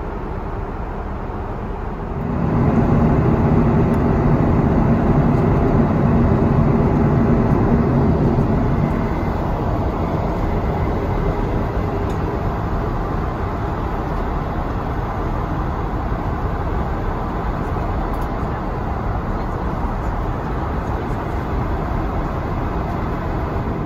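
Steady jet airliner cabin noise in flight: an Airbus A330's engines and rushing air heard from inside the cabin. It gets louder and deeper about two and a half seconds in, then eases a little after nine seconds.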